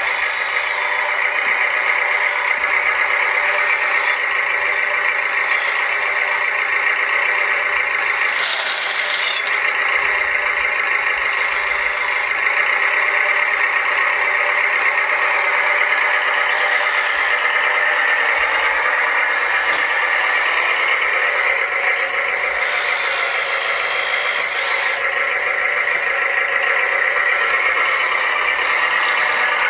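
Small electric motors and gearboxes of 1/14-scale RC construction models running steadily, with thin high whines that come and go. A short hiss about nine seconds in.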